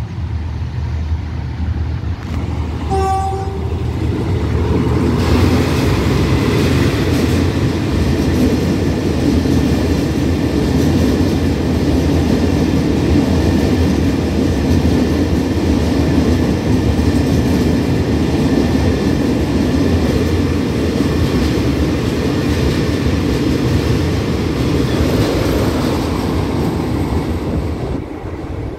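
DD51 diesel-hydraulic locomotive giving a short horn blast about three seconds in. Its engines then run loud and steady as it passes, followed by the wheels of its ballast hopper wagons rolling by on the rails. The noise eases slightly near the end.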